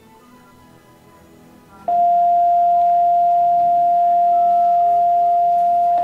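A loud, steady electronic beep at one pitch, cutting in suddenly about two seconds in and held for about four seconds, over quiet background music.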